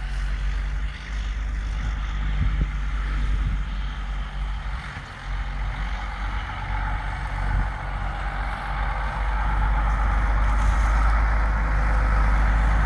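Freightliner truck tractor's diesel engine running as it drives, growing louder near the end as it comes closer.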